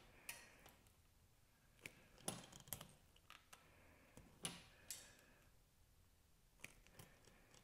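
Faint, scattered snips and clicks of wire strippers cutting and stripping the insulation off wire ends.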